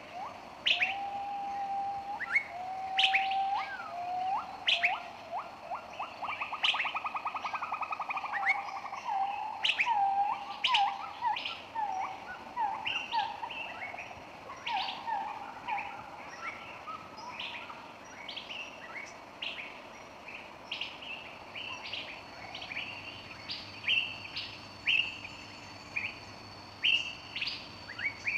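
Several birds calling: short, sharp chirps repeat throughout, and a lower whistled song with a fast trill and a run of repeated notes fills the first half, then fades.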